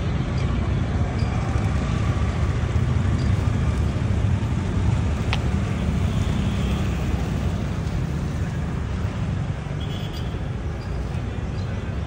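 Steady low rumble of outdoor background noise, with a single short click a little past five seconds in.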